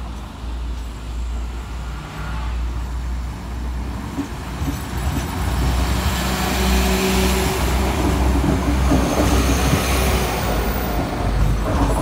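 Class 172 Turbostar diesel multiple unit moving off and running past over the level crossing. Its engines and transmission whine grow louder from about halfway through, along with the rumble of wheels on the rails.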